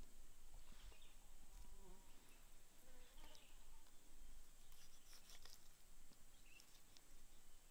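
Faint outdoor ambience with a steady, high-pitched insect drone, and a few soft taps of a kitchen knife on a wooden cutting board as raw fish is sliced.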